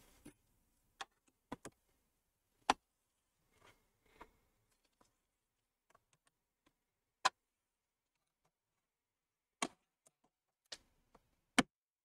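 Sparse, irregular clicks and taps of a pry tool and gloved fingers against the plastic trim and housing of an all-in-one PC's stand as the trim is probed for a spot to pry open, with a faint rustle of handling between them.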